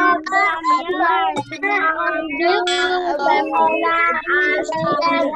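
Several children reciting a sentence together in a sing-song chorus, their high voices overlapping, as they repeat a line of the lesson after the teacher.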